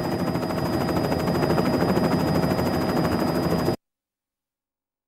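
Helicopter running, with a rapid, even rotor chop; it cuts off suddenly a little under four seconds in.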